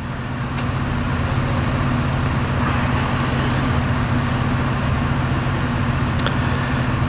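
A vehicle engine running steadily nearby, a low even hum that swells a little over the first second or so.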